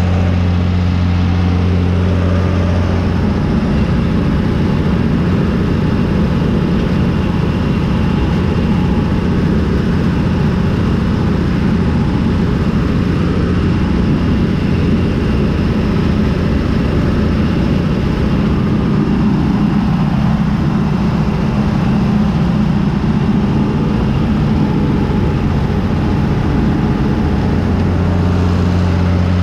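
John Deere 3350 tractor's diesel engine running steadily under load while it pulls a Zmaj 222 corn picker through the corn. A steady low drone is heard at the start and end; for most of the time it is heard from inside the cab, rougher and noisier.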